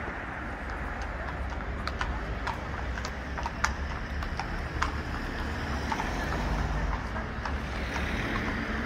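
Shod hooves of horses walking on a paved road, clip-clopping irregularly, beginning about two seconds in and thinning out near the end, over a steady low background rumble.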